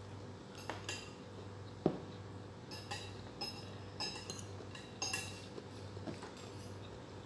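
Metal cutlery clinking and scraping against a ceramic bowl while eating, in scattered light taps every half second to a second, with one sharper knock about two seconds in.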